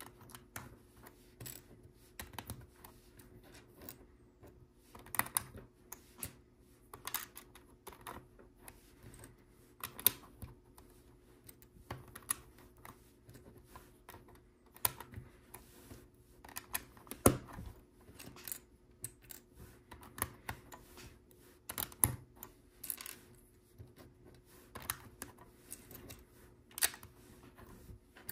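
Plastic LEGO bricks clicking and snapping together as pieces are handled and pressed into place, in irregular clicks with the sharpest about 17 seconds in. A faint steady hum lies underneath.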